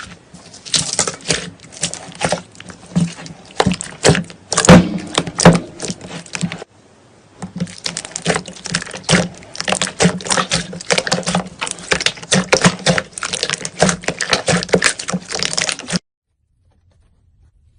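Slime being squeezed and pressed by hand, giving rapid, irregular wet clicks and pops. The clicks pause briefly about six and a half seconds in and stop abruptly near the end.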